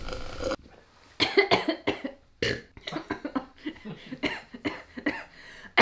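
A woman coughing in a long fit of short, rapid coughs, starting about a second in: a sip of coffee went down the wrong pipe.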